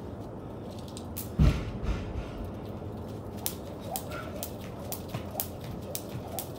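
Jump rope slapping a concrete floor with each turn, about two sharp slaps a second, starting about a second in. A heavy thud about a second and a half in is the loudest sound.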